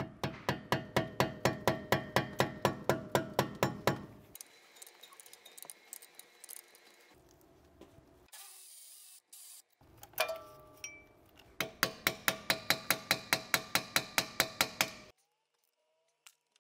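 Ratcheting wrench clicking quickly and evenly, about five clicks a second, as 13 mm brake caliper bolts are spun out. There are two runs of clicks, one per bolt, with a single ringing metal clink between them.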